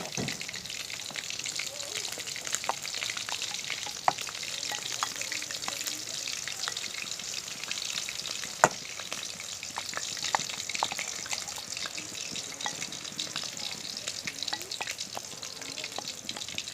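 Onions frying in oil in a pan, sizzling steadily while a spatula stirs them, with frequent clicks and scrapes against the pan and one louder knock about eight and a half seconds in.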